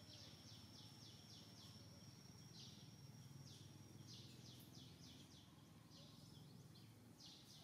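Faint forest ambience: runs of short, high chirping notes, about five a second, coming and going several times over a thin, steady high whine.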